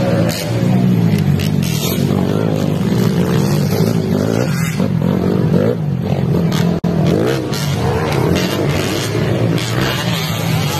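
Off-road racing motorcycles running on a dirt track. Several engines rev and pull away at once, their pitch rising and falling as the riders work the throttles.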